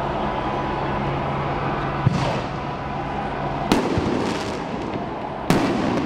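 Fireworks going off: three sharp bangs about a second and a half apart, each trailing off in a short crackle, over steady street noise.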